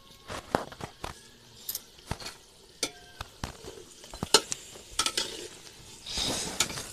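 Cooking utensil clinking and scraping against a metal pot as chicken curry is stirred over a wood fire, in irregular knocks, with a short burst of sizzling about six seconds in.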